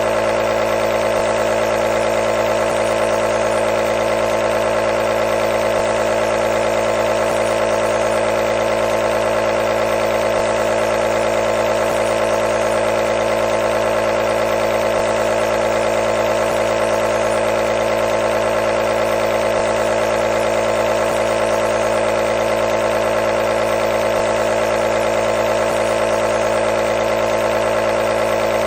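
Compressor nebulizer running with a steady, unchanging motor hum.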